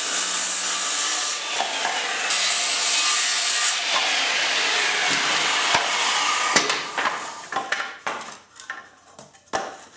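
Corded jigsaw cutting through plywood, cutting a plywood circle into quarters. It runs steadily for about six and a half seconds and stops, followed by a few knocks as the cut wooden pieces are handled.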